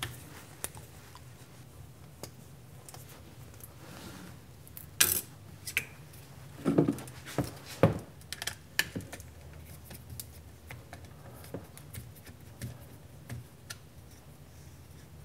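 Scattered light clicks and taps of hand-work on small parts: a hex key turning small screws and a plastic 3D-printed mount and Loc-Line nozzle hose being handled and fitted, with a few sharper knocks about 5, 7 and 8 seconds in. A faint steady hum lies underneath.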